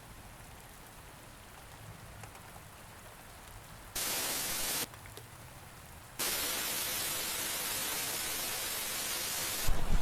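Faint rain hiss, then loud, even static hiss that cuts in abruptly twice: a short burst about four seconds in and a longer stretch from about six seconds, which cuts off sharply near the end.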